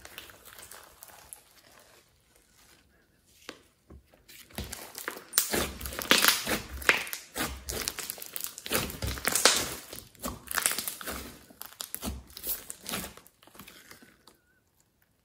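Hands kneading and stretching a large lump of glossy slime mixed with clay, giving sticky squishing and dense crackling clicks as trapped air pops. It is sparse for the first few seconds, busiest in the middle, and dies away near the end.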